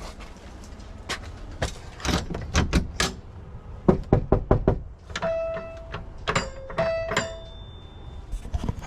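Knocking on a door in two runs of raps, then a doorbell chiming a two-note ding-dong twice.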